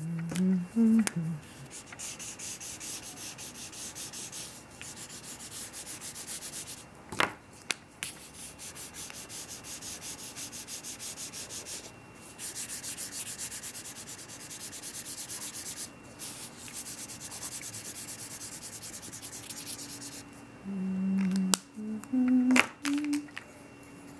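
Felt-tip markers scribbling on paper in fast back-and-forth strokes: a dry, scratchy rasp in long runs with short pauses. There is one sharp tap about seven seconds in.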